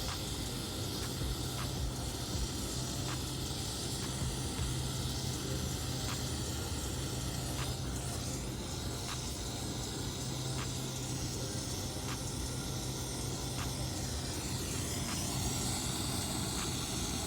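Steady hiss of a lit soldering torch flame over a steady low hum, with faint ticks roughly once a second.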